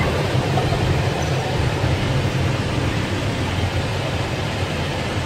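Steady engine drone and road noise heard from inside the cab of a large vehicle on the move, with a low hum under a broad rumble.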